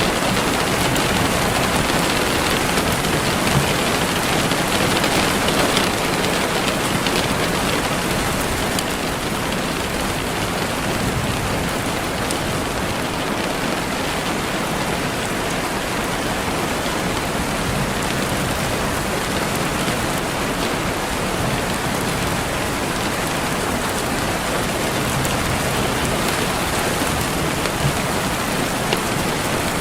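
Steady rain falling on a surface: an even, unbroken hiss with faint scattered drop ticks.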